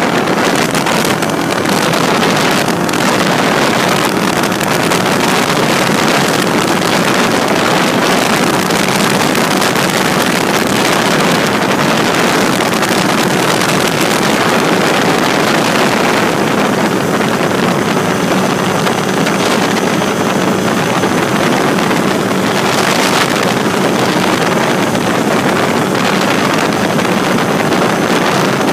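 Drifter ultralight aircraft's engine running steadily in flight, with wind rushing over the microphone.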